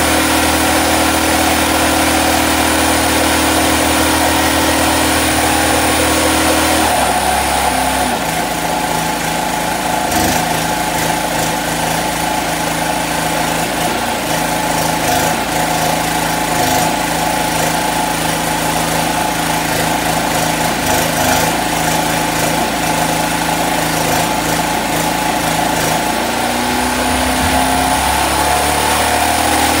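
Portable gasoline generator running steadily, and from about seven seconds in the crackle and hiss of a stick-welding arc (7018 rod, 120 V AC) cutting through a steel drum. The generator's engine note changes as the arc strikes and the welder draws on it.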